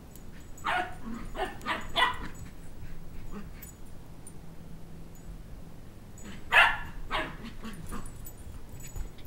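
Shetland Sheepdog puppy barking in high-pitched barks: a quick run of four about a second in, then two more near the end, the first of those the loudest.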